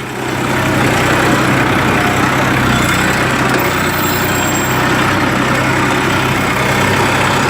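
Tractor's diesel engine running steadily while sowing a field.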